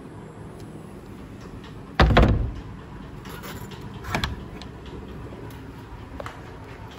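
A heavy thump about two seconds in, then a lighter knock about two seconds later and a faint click near the end, over a steady low background hum.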